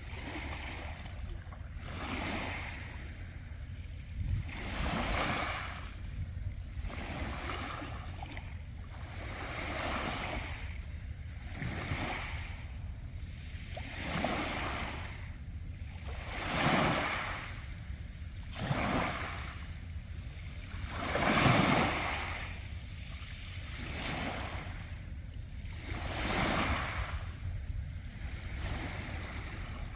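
Sea waves washing in and drawing back over a beach of round pebbles, one surge every two to three seconds, with the biggest surges a little past halfway.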